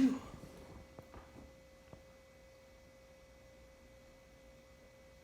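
The last of a loud sneeze fading out right at the start, then a quiet room with a faint steady tone and a few soft clicks.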